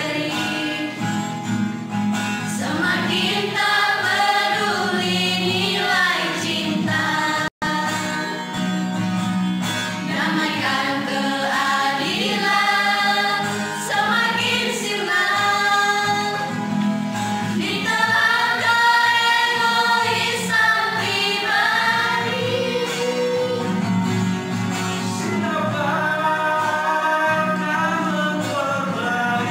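Mixed youth church choir singing a hymn together. The sound cuts out for an instant about seven and a half seconds in.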